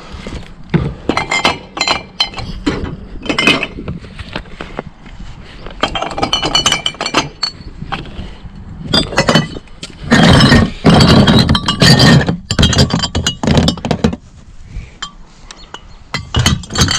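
Empty glass beer and liquor bottles clinking and knocking against each other as they are put into a crate already full of bottles. The loudest run of clattering glass comes about ten seconds in.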